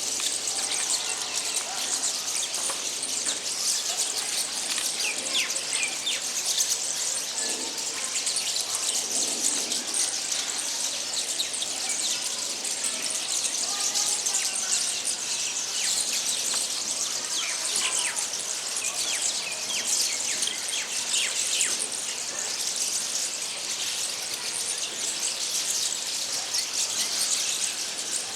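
A flock of small birds chattering and singing together: many short, high chirps and quick down-slurred notes overlapping without a break.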